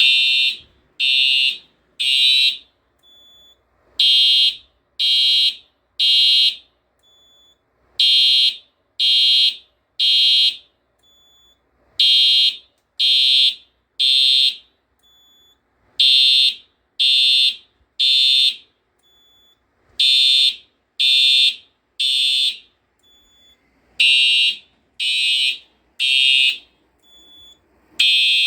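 Simplex 4903-9254 horn strobe, with a horn of the Simplex TrueAlert type, sounding a fire alarm in the code 3 temporal pattern: three half-second blasts, a pause, and the group repeating every four seconds. It is in alarm because the pull station has been activated. A faint short beep falls in each pause.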